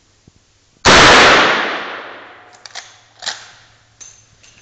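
A single gunshot from a .38 Winchester lever-action rifle about a second in, very loud and echoing for about two seconds, followed by several sharp metallic clicks as the lever action is worked.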